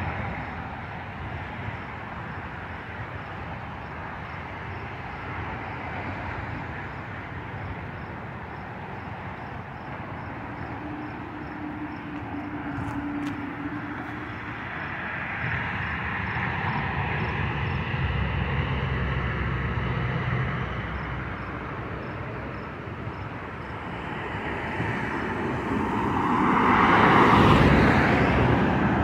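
Jet aircraft approaching low overhead. Its engine noise grows over the last few seconds to a loud peak near the end, above a steady background rumble.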